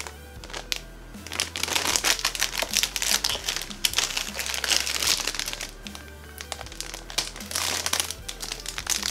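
Thin clear plastic bags holding plastic model-kit runners crinkling in irregular bursts as they are handled and turned. Background music with a low bass line plays underneath.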